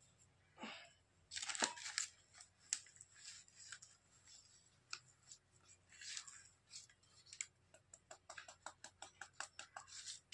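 Metal spoon scraping and scooping dry powdered firework composition off a paper sheet, with paper rustling; the loudest scrape comes about one and a half seconds in. Near the end comes a quick run of light taps.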